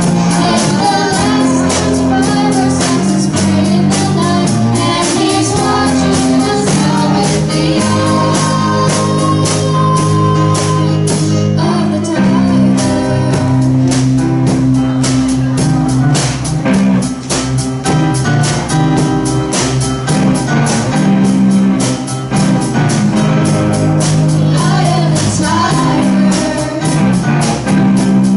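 A student rock band playing live, with guitars, drum kit and singing over a steady beat.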